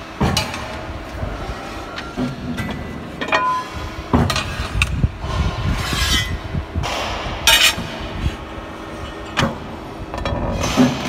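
A sheet-metal press brake bending steel strip: a steady machine hum with several sharp metal clanks at irregular intervals as the steel is handled and pressed in the die.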